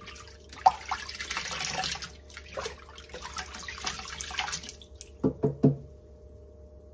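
Hands sloshing raw chitterlings around in a stainless steel sink full of water, with splashes and water dripping as handfuls are lifted out. About five seconds in come three short, louder knocks.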